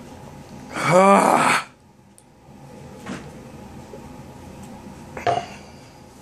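A man's loud, rough vocal noise lasting under a second, about a second in, a pained reaction to the burn of pepper extract. A shorter, fainter noise follows near the end as he drinks from a cup.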